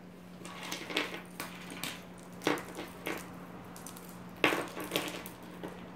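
A few light clicks and clinks of costume jewelry being handled, scattered about a second apart, over a faint steady hum.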